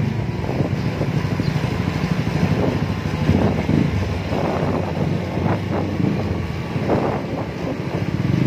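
Yamaha XMAX300 scooter's single-cylinder engine running at low speed through an aftermarket PR2 exhaust, a steady low exhaust note close by.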